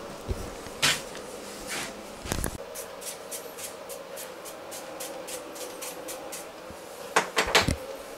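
Scissors snipping hair during a home haircut: a quick, even run of snips at about four a second, with a thump just before and a few louder knocks near the end.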